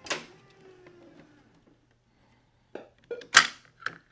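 Racquet string on a Babolat stringing machine being readied for tensioning: a click, then the taut string twangs and rings for about a second and a half, its pitch sliding slightly down. About three seconds in come a few clicks and one sharp, loud snap.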